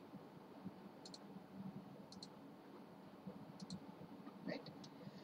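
Faint computer mouse clicks, coming in quick pairs about four times, over quiet room tone.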